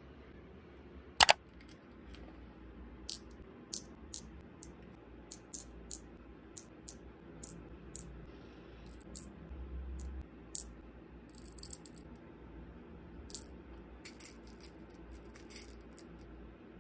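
Light, sharp clicks of metal tweezers picking small pearl beads from a plastic bead case and dropping them into a resin heart shaker, about one or two a second, with a few short rattles of beads. A single louder sharp click sounds about a second in.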